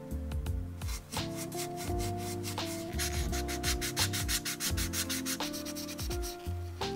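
Quick back-and-forth sanding strokes on a plastic model car chassis part, about five or six a second, loudest in the middle. Soft background music plays underneath.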